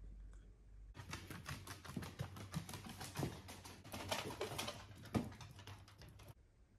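Miniature dachshunds' claws clicking and pattering rapidly and irregularly on bare wooden floorboards as they scamper about, with a few heavier knocks. It starts about a second in and stops abruptly near the end.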